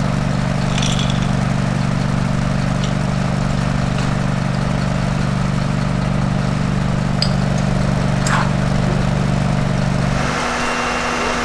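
Fire engine's diesel engine running steadily at a constant speed to drive its pump, a low even drone with a few faint clicks over it. The drone stops suddenly near the end.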